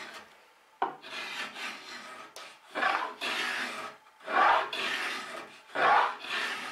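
A file rasping in long strokes along the edge of an oak board, shaping an edge profile. There are about four strokes, roughly one every second and a half, each loudest as it starts.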